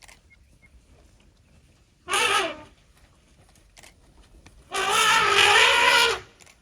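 African elephant trumpeting: a short blast about two seconds in, then a longer one of about a second and a half.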